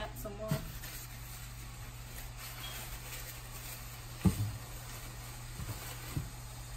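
Shito pepper sauce frying in a pot, a faint steady sizzle with a low hum under it. A single clunk of cookware about four seconds in, with a few lighter clicks.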